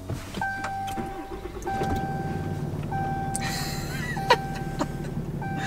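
Ram pickup engine started by push button, catching and settling into a steady idle, heard from inside the cab. A dashboard warning chime sounds over it in long tones about once a second.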